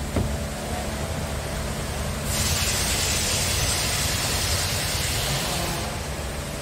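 Scania R tractor unit's diesel engine idling as a steady low rumble, with a light knock just after the start and a steady hiss for a few seconds from about two seconds in.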